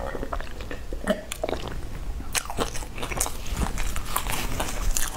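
A person chewing and crunching crisp food close to a clip-on microphone, with many short crackles and mouth clicks.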